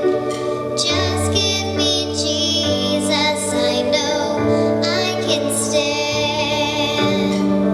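Singing over instrumental accompaniment in a gospel song, with held, wavering sung notes above low sustained chords that change every second or two.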